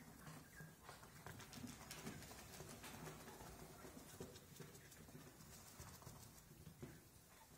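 Near silence with faint, scattered ticks and rustles: young Japanese quail pecking, scratching and shuffling in straw bedding and a sand tray.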